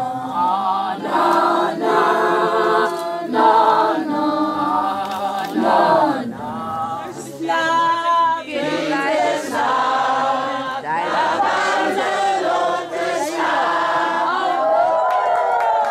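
Group of voices singing a Swazi chant together, in short phrases of held notes.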